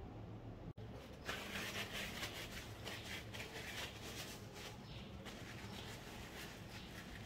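After a brief cut-out of the sound, a paper towel rustles and rubs in irregular strokes while a disassembled sub-ohm vape tank part is wiped dry of leftover e-liquid.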